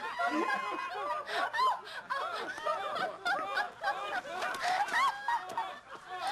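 Several people laughing at once, a stream of overlapping giggles and chuckles, brought on by breathing laughing gas (nitrous oxide).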